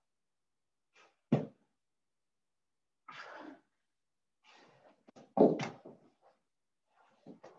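Scattered thumps of feet and hands hitting the floor during burpees and crouch star jumps. A loud thump comes about a second in and another pair around the middle, with softer shuffling sounds between.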